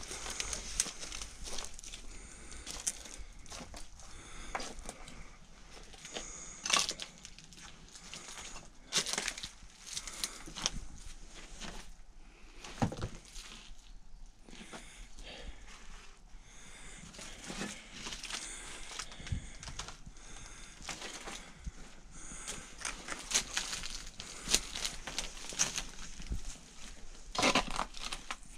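Footsteps crunching and scraping on loose brick rubble and debris, a steady run of irregular crackles with a few sharper cracks.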